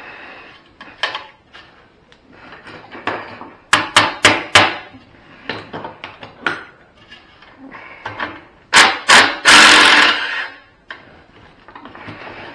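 Hand tools knocking and clattering while the charger is being taken apart: about four seconds in, four quick sharp taps; near the end, two loud knocks and then about a second of loud scraping.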